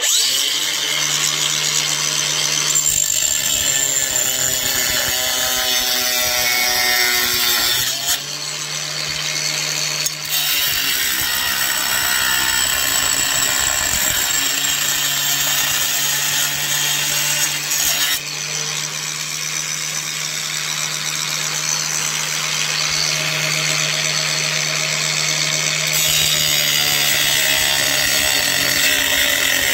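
Angle grinder cutting a notch out of a ceramic wall tile: the motor runs steadily with a hissing cut, dipping briefly a few times as the disc is moved through the tile.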